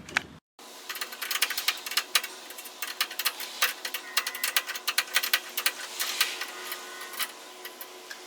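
Rapid, irregular metallic clicking and ticking of an adjustable wrench working the nut on a garage door opener's chain adjustment bolt, as it is tightened to take up the chain's slack.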